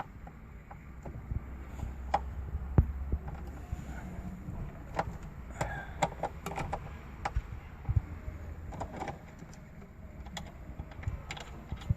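Irregular small clicks and light knocks as the mounting screws of a car's stock radio are undone in the dashboard, over a low steady hum. The sharpest click comes about three seconds in.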